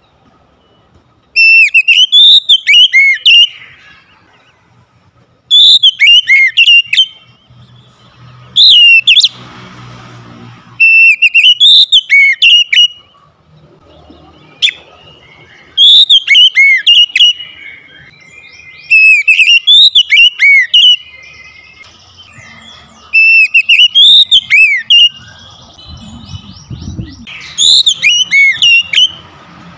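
Oriental magpie-robin singing loud whistled song phrases with quick gliding notes, delivered in about seven bursts of one to two seconds each with short pauses between.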